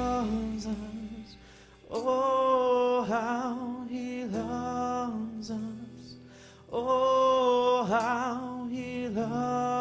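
Worship song: a solo singer holding long notes with vibrato in phrases separated by short pauses, over soft sustained accompaniment.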